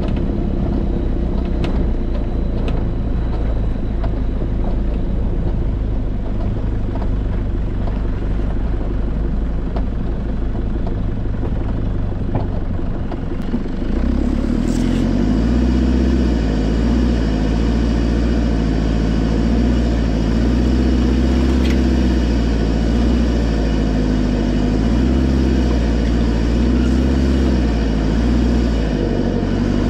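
A 4x4's engine running as the vehicle drives slowly along a rough dirt track, heard from a camera on its bonnet. About fourteen seconds in the sound steps louder and deeper, and near the end the engine's pitch rises and falls a few times with the throttle.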